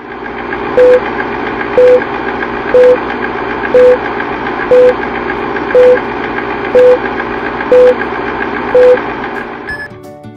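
Vintage film-leader countdown sound effect: a film projector's steady whirring clatter with a short beep once a second, nine beeps in all, then one brief higher tone before it stops.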